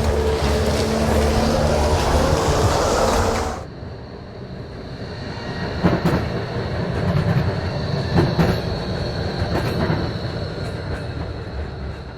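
Train recordings from a field-recording library: a loud, steady running noise with a low hum cuts off about three and a half seconds in. A quieter rumble follows, with a steady high whine and a few sharp clacks of train wheels on the rails.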